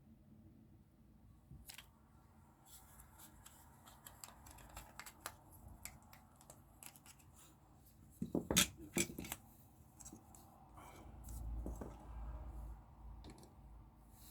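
Small plastic model-kit parts being handled and fitted together: scattered light clicks and taps, with a cluster of louder clicks about eight and a half seconds in.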